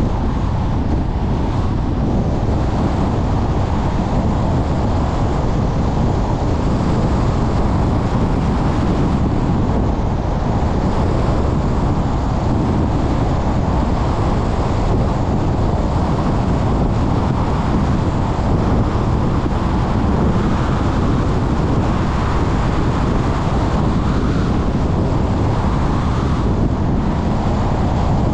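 Steady rushing road noise from a car driving at moderate speed: tyre rumble and wind buffeting the microphone, with no change in level.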